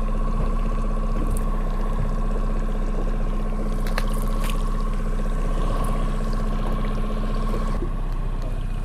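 Boat motor running steadily at trolling speed, a constant hum with a higher whine above it, with water trickling against the hull.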